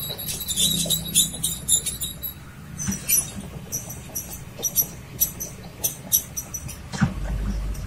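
Kobelco crawler excavator travelling, its steel tracks squeaking and chirping in short clusters over the low, steady running of the engine. A few clunks come through, the loudest about seven seconds in.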